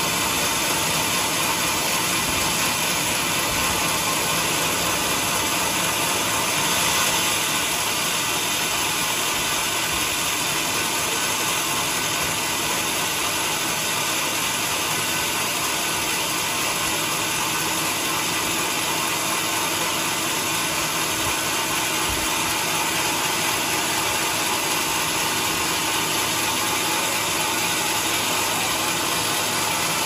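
Large band sawmill running steadily, its blade sawing lengthwise through a big teak log.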